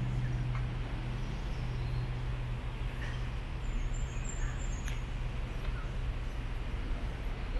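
Street ambience: a steady low hum with an even background wash, and a few faint chirps now and then.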